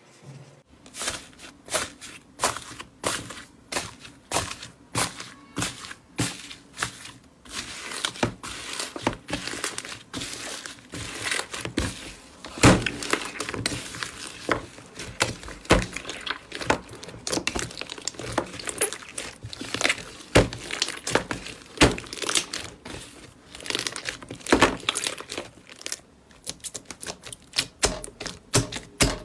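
Slime being squeezed and poked by hand, making a run of sharp pops and clicks. They come about two a second at first and grow quicker and denser from about eight seconds in.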